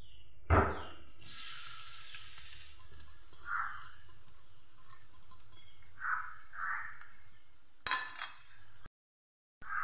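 Chopped onion tipped into hot oil in a kadai: a thump as it lands about half a second in, then a steady sizzle of frying, with a few short scrapes. The sound cuts out briefly near the end.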